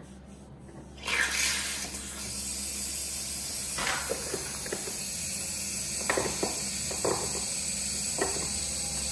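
Mains water hissing steadily through the horse drinker's float valve as it fills the bowl, starting suddenly about a second in. A few light knocks of a spanner on the fitting.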